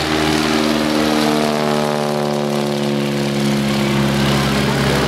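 Curtiss Standard biplane's piston engine and propeller at climb power just after takeoff, passing close by, its pitch falling steadily as it flies past and away.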